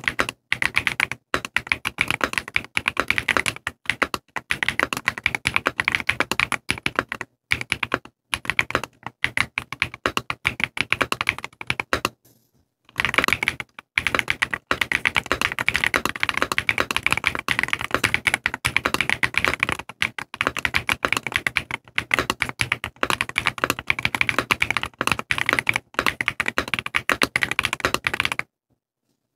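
Fast, continuous typing on a mechanical keyboard with Gateron CM 3.0 factory-lubed linear switches under thick polycarbonate-and-PBT ASA-profile keycaps: a dense, clacky patter of keystrokes, with a short break about halfway through and stopping just before the end.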